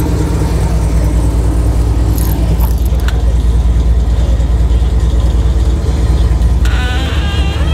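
Supercharged LT4 V8 idling with a steady low rumble. A short, wavering squeak comes in near the end.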